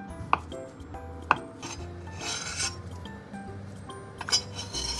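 Knife chopping down through soft hanpen fish cake onto a wooden cutting board, a sharp knock about a second apart, followed by scraping about two seconds in. Near the end the diced pieces slide off the board and drop into an oiled cast-iron frying pan.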